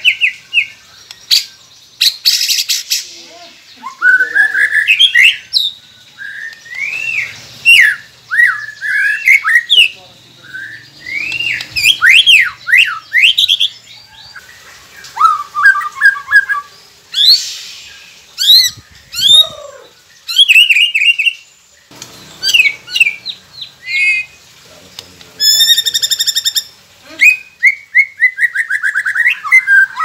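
White-rumped shama singing a long, varied song of loud slurred whistles and rapid trills, broken by short pauses and a few harsh chattering notes, with a fast run of quick notes near the end.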